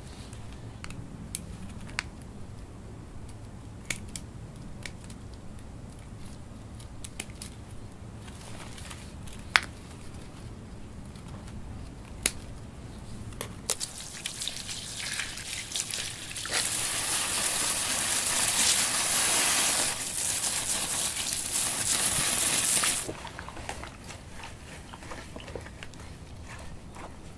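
Scissors snipping through a clump of orchid roots, a scattering of sharp clicks. About halfway through, water splashes steadily over the roots onto stone paving, the loudest sound here, and stops suddenly; after that, hands rustle in bark potting mix.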